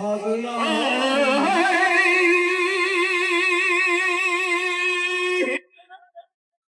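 Amplified singing over loudspeakers: a voice rises through a few notes, then holds one long note with wide vibrato and is cut off abruptly about five and a half seconds in.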